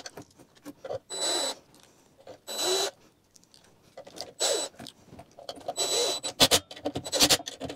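Cordless drill-driver running in four short bursts, its motor whine rising as each starts, driving in the screws of the mower engine's valve cover. Near the end comes a quick series of sharp clicks and taps.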